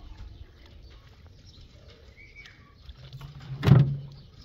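Faint sloshing of hands working rice in water in an aluminium pot, then one loud thump with a short low hum around it about three-quarters of the way through, as the large plastic water jug is set down on the concrete.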